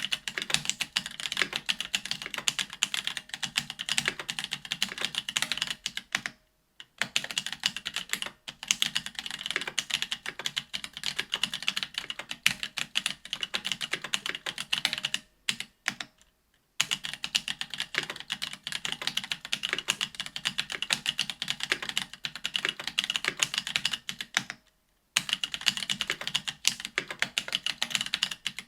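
Fast, continuous typing on a BOK AL.BOK custom mechanical keyboard with stock Ethereal Panda tactile 68g switches. The typing stops briefly a few times, the longest pause coming a little past the middle.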